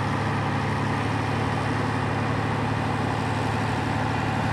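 A vehicle engine running steadily at an even hum, with no change in speed.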